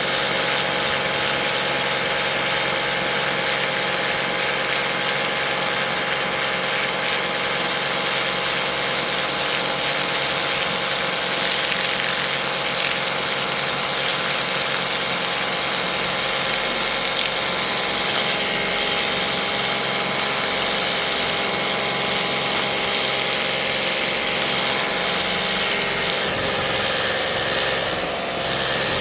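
Ryobi 18V cordless handheld pressure washer running steadily, its motor-driven pump humming under the hiss of the water jet spraying a pool cartridge filter.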